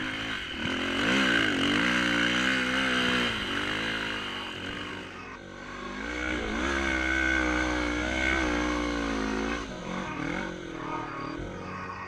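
Off-road vehicle engine revving up and down under throttle while climbing sand, heard close to the rider; a different engine note takes over about five seconds in.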